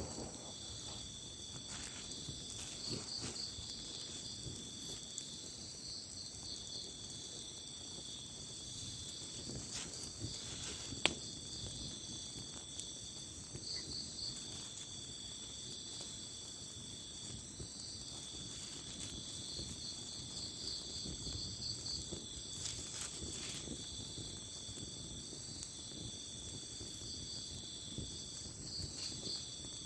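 Night forest insects, crickets, trilling steadily in several high overlapping bands, with a pulsed chattering call coming back every few seconds over them. A single sharp click sounds about eleven seconds in.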